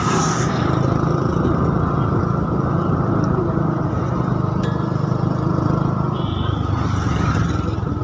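Motorbike engine running steadily at road speed, mixed with wind rush and road noise.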